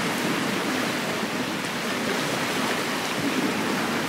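Steady rushing wash of sea surf on the shore.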